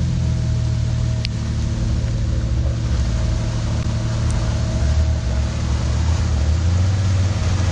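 Off-road 4x4's engine running at low revs as it crawls through a muddy rut, over a steady hiss of rain. The engine note grows louder about five seconds in as the vehicle comes closer.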